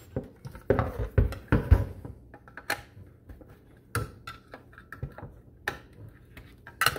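Irregular clicks and light knocks of a flathead screwdriver turning the spring-loaded hold-down latches of a GM large-cap HEI distributor cap to unlock them, with the plastic-capped distributor shifted about on a workbench.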